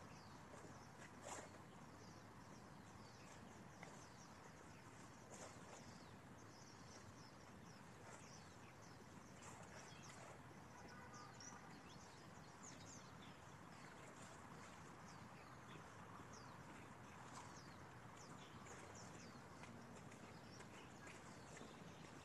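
Near silence: faint outdoor hiss with many short, high chirps of small birds scattered through it, and a few soft thuds.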